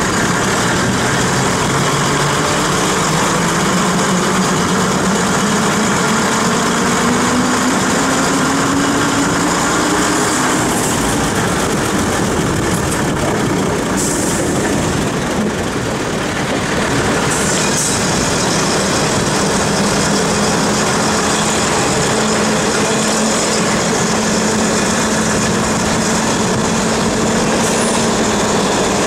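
Diesel multiple unit running along the line, heard from an open carriage window: its underfloor diesel engine runs under rolling and wind noise. The engine note climbs for several seconds and drops back about ten seconds in, then later holds a steady note.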